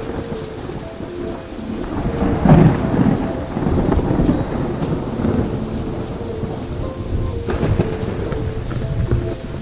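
Steady heavy rain with thunder rumbling underneath, swelling loudest about two and a half seconds in and again a little later.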